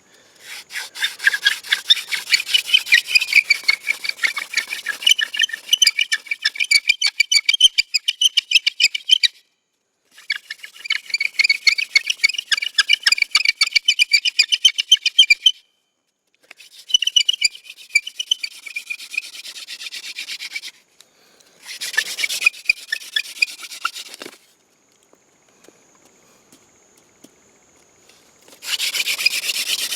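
Yucca-stalk hand drill spinning in a trumpet vine hearth board: a dry, squeaky rubbing of wood on wood, rapidly pulsing as the spindle is twirled back and forth between the palms, in runs of several seconds with short breaks as the hands go back to the top of the spindle. Near the end a louder, denser run of drilling starts as the friction fire builds toward a coal.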